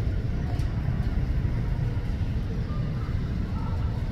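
Steady low rumble of a jet airliner landing, heard from the ground.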